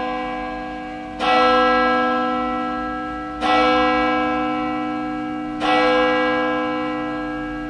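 A bell tolling slowly: three strokes about two seconds apart, each ringing on and fading out into the next.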